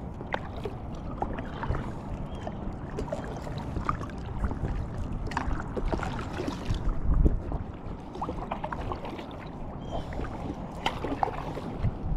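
Water sloshing and splashing around an inflatable packraft, with scattered small knocks and handling sounds and one heavier thump about seven seconds in.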